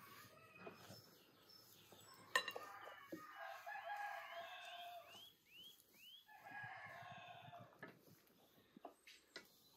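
A rooster crowing twice, each crow lasting a second or more, while a small bird chirps over and over in short hooked notes. A single sharp click comes about two seconds in.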